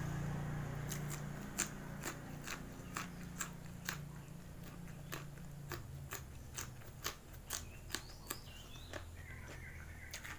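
Close-up chewing of crunchy raw vegetables such as yard-long bean, crisp crunches about twice a second.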